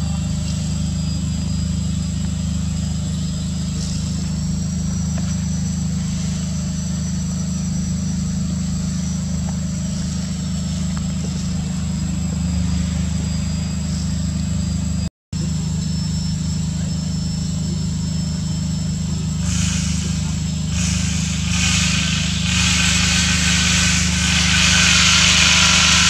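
Steady low hum of an engine running, with a thin high whine that drifts up and down in pitch. The sound cuts out for an instant about fifteen seconds in, and a hiss grows over the last several seconds.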